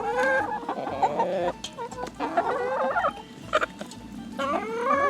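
Chickens clucking and calling in three bursts of rising, squawky calls, with a few short clicks in between.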